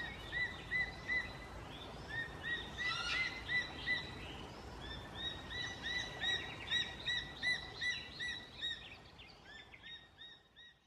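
An eagle calling in a rapid series of short, arched notes, several a second, growing fainter near the end, over a faint steady hiss.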